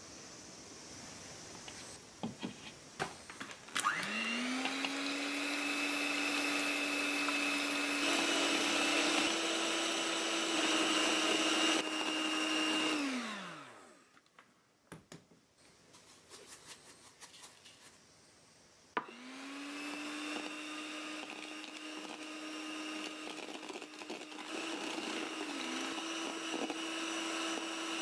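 Electric hand mixer whipping egg white in a bowl: the motor starts with a rising whine, runs steadily with its pitch stepping up a little partway through, then winds down. After a short pause with a few light taps it starts again and runs on until it winds down near the end.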